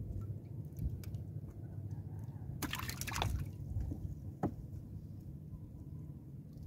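Water dripping and spattering off a wet fishing net as it is lifted and worked by hand, with a dense burst of drips about three seconds in and a single sharp drop a little later, over a low steady rumble.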